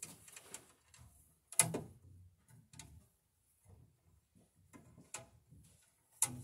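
Stiff insulated copper building wire being handled and bent into place by hand, making scattered light clicks and ticks, with sharper clicks about one and a half seconds in and near the end.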